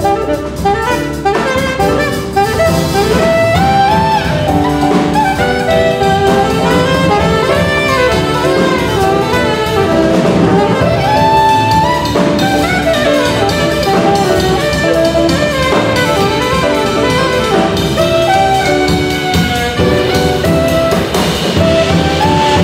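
Jazz quartet playing: a tenor saxophone solos in quick runs of notes over piano, electric bass and drum kit.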